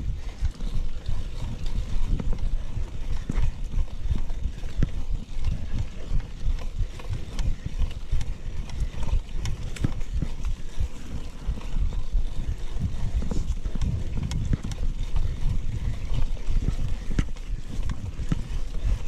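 Mountain bike ridden over a rough forest trail: wind rumbling on the microphone, with frequent knocks and rattles from the bike over the bumps.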